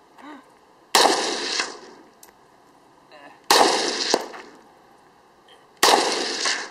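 SKS semi-automatic rifle firing three shots, about two and a half seconds apart. Each shot rings out with a short echoing tail.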